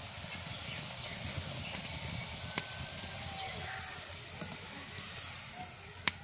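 Spinach puri deep-frying in hot oil in a metal wok: a steady sizzle, broken by a few sharp clicks. The loudest click comes near the end, as the wire strainer scoops the puri out.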